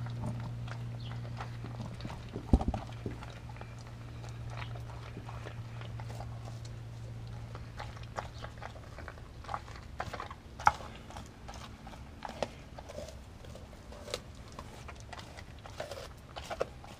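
Doberman chewing and crunching raw meat and bone, with irregular wet crunches and sharp cracks, two of them much louder than the rest.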